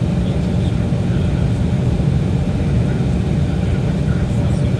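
Steady low rumble inside the cabin of an Embraer E175 regional jet taxiing on the ground, its engines and the airframe making a constant hum.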